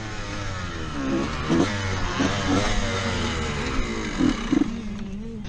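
A Honda motocross bike's engine revving up and down as it is ridden, losing power near the end because the fuel tap was left off.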